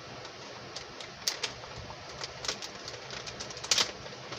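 A few short crinkles and crackles of a plastic seasoning sachet being handled and opened, the sharpest about a second in and again near the end, over a steady faint hum.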